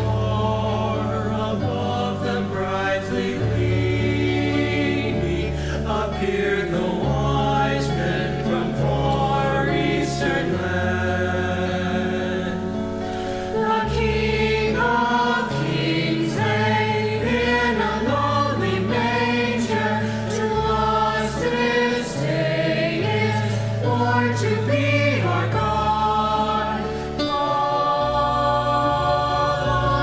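Mixed high school choir singing a Christmas carol in harmony, over an instrumental accompaniment with low sustained bass notes that change every second or two.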